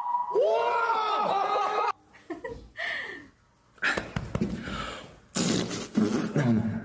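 Beatboxer making vocal mouth sound effects. A sliding voiced tone comes first, then sparse clicks and pops with a short whistle-like note, then loud hissing, spitting bursts near the end.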